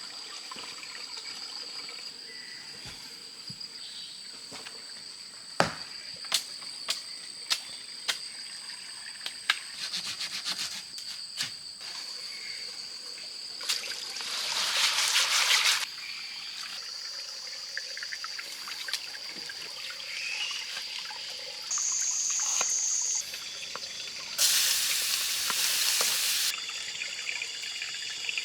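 Forest ambience: trickling water under steady high-pitched insect calls, with scattered clicks. Two louder hissing bursts come about halfway through and again near the end.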